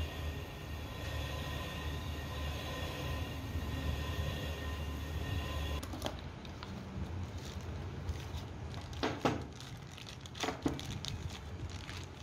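A steady low mechanical hum with faint steady tones, cut off abruptly about halfway through; then the crinkling and rustling of a plastic packet as a new truck universal joint cross is unwrapped, with a few sharper crackles.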